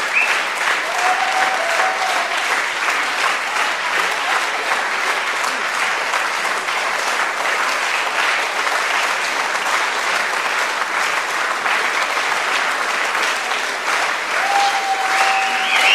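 A theatre audience applauding steadily, many hands clapping at once.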